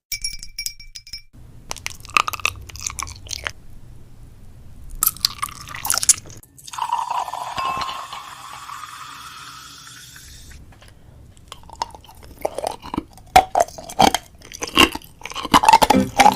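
Crinkling and crunching from craft materials being handled, in many short crackles, with one longer continuous scratchy stretch of about four seconds in the middle.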